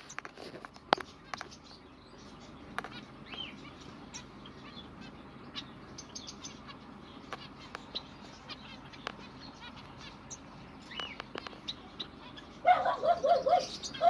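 Zebra finches chirping with short, scattered calls and occasional clicks, then a louder run of rapid calls near the end.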